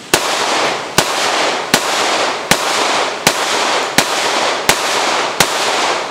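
Kahr CT45 .45 ACP semi-automatic pistol fired eight times in steady succession, about one shot every three quarters of a second, each shot followed by a trailing echo.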